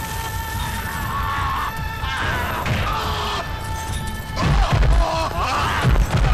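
Fight-scene film soundtrack: a dramatic background score with heavy punch and body-impact sound effects, deep thuds landing about halfway through and again near the end.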